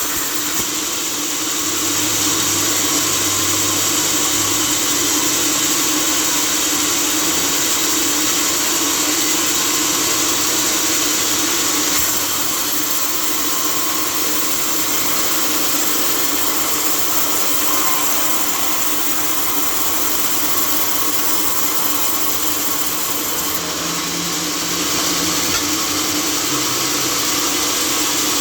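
Sawmill machinery running steadily: a continuous loud mechanical hum with a hissing, noisy top and no distinct cuts or impacts.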